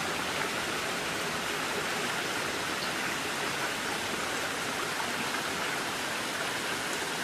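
Steady rush of a small stream trickling over rocks.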